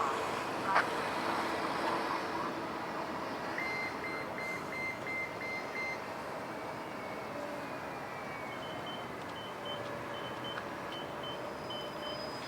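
Street traffic noise with repeated electronic beeping: a quick run of about seven beeps in the middle, then a slower, higher-pitched repeating beep from about two-thirds of the way in.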